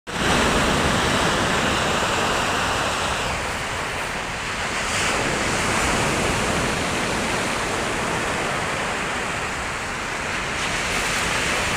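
Rough sea surf washing onto the shore: a steady rushing of waves that swells and eases slowly.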